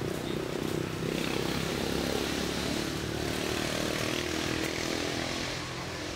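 Steady engine drone that swells about a second in and eases off near the end, as a motor passes.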